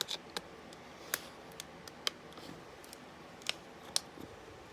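Stiff plastic blister packaging being cut open by hand: scattered sharp clicks and crackles at irregular intervals, a couple of them louder near the end.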